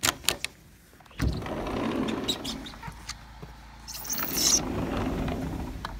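A door lock and handle click several times in quick succession, then a sliding glass patio door is pushed open along its track, letting in a noisy rush of outdoor air. A brief sharp scraping rush comes about four seconds in, and a single click near the end.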